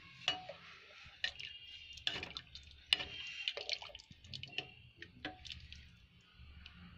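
Metal ladle stirring a thin chickpea curry in a metal pot, with irregular clicks and knocks against the pot's sides and liquid sloshing; a sharper clink about three seconds in.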